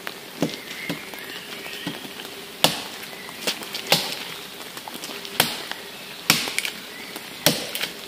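Homemade machete, cut from a circular saw blade, chopping into a fresh fallen tree trunk: sharp separate blows at an uneven pace of roughly one a second.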